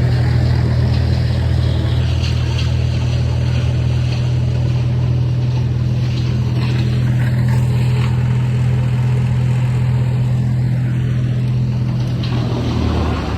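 Engine of heavy tree-work equipment running steadily at a fixed speed, then dropping to a lower speed near the end.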